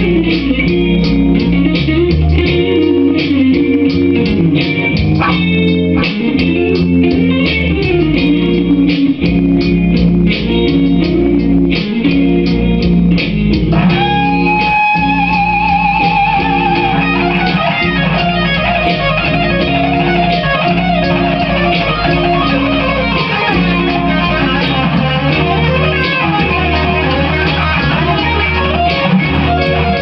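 Electric guitar played through a Line 6 Spider Valve amplifier: a bluesy rock riff over pre-recorded backing parts. About halfway through, a long held, wavering note comes in over the riff.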